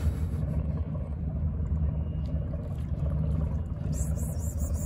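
Steady low rumble of an idling engine, with a brief hiss about four seconds in.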